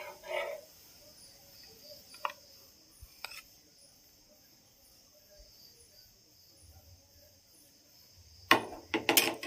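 Spatula working on a tawa as a cooked besan chilla is taken off: a few light taps and clicks, then near the end several loud scraping strokes.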